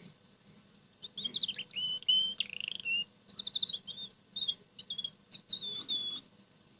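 Red canary singing: a phrase of quick trills and whistled notes that starts about a second in and stops a little after six seconds.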